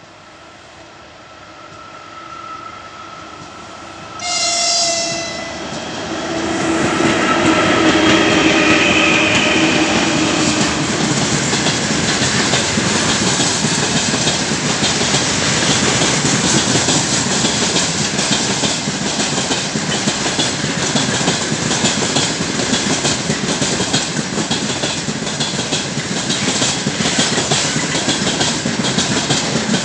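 Russian 3ES5K 'Ermak' electric freight locomotive approaching and sounding its horn, a sudden loud blast about four seconds in with more horn or motor tones over the following seconds. A long train of loaded tank cars then rolls past close by with a steady rumble and rapid clicking of wheels over rail joints.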